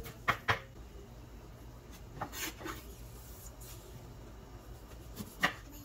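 Chef's knife knocking on a wooden cutting board, with two knocks just after the start and softer scraping about two seconds in. One sharp, louder knock comes near the end as the blade cuts through a lime into the board.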